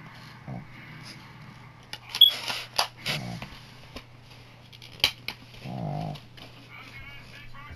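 Plastic Blu-ray/DVD cases being handled: scattered clicks, with a burst of clattering and rattling about two seconds in. Two short pitched sounds come near three and six seconds in.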